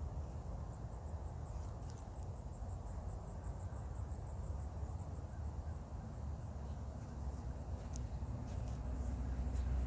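Insects trilling steadily in a fast, even high pulse over a low rumble, with a few light knocks near the end.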